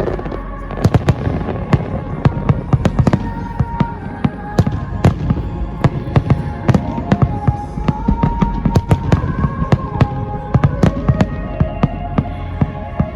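Aerial fireworks bursting in rapid succession: dense sharp bangs and crackles, several a second, over a steady rumble, with music playing underneath.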